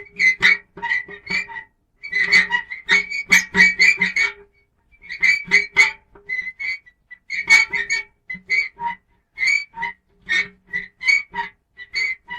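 Metal squeaking and creaking in quick short strokes, several a second, coming in clusters with brief pauses between; each squeak has a high squeal over a lower groan.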